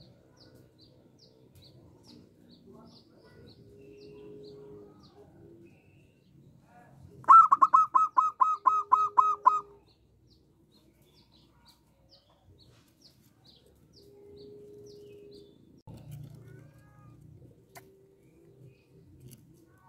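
Zebra dove (perkutut) singing: one loud, quick run of about ten clipped, evenly spaced coos lasting a little over two seconds, about seven seconds in.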